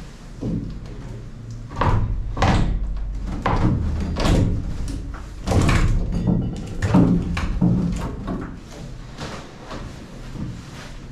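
Irregular knocks and thumps, about a dozen spread over several seconds and loudest in the middle, from the cut-up old wooden stringer in a fiberglass boat hull being handled and worked loose.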